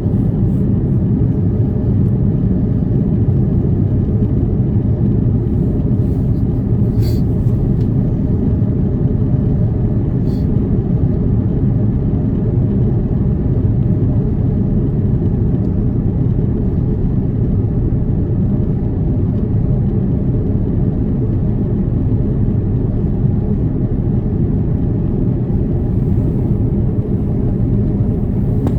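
Steady low rumble of an Airbus A330 airliner cabin, heard from inside, with faint clicks about seven and ten seconds in.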